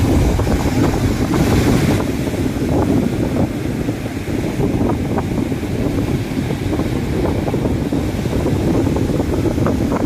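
Strong wind buffeting the microphone with a heavy, steady rumble, over storm surf breaking and washing up the beach.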